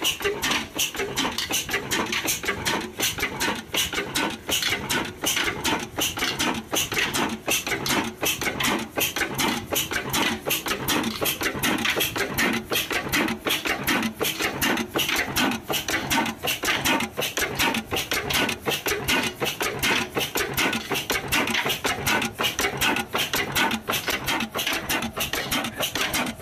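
35 HP old Ruston Hornsby diesel engine running, its valve gear and rocker arms giving a fast, even metallic clatter.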